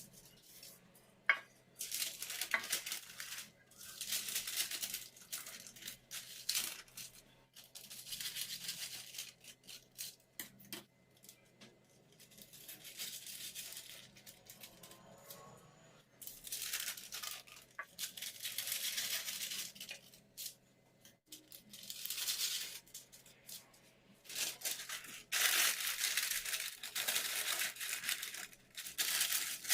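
Repeated bursts of rustling and scraping, each one to three seconds long, with short pauses between them.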